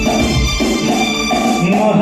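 Instrumental backing music of a Hindi film song, held chords over a low beat, in a pause between sung lines.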